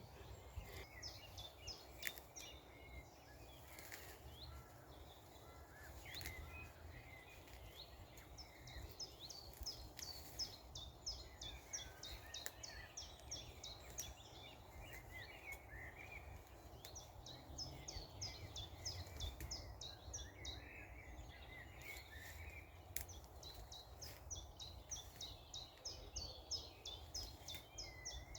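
Small birds singing, faint: phrases of rapid, repeated high chirps lasting several seconds, mixed with lower warbling notes, over a faint low rumble.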